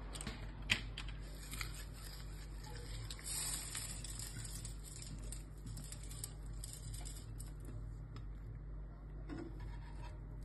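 Light handling sounds of food going into a ceramic baking dish: soft taps and rustles as sliced red onion is scattered over cherry tomatoes, with one sharper click just under a second in. A steady low hum runs underneath.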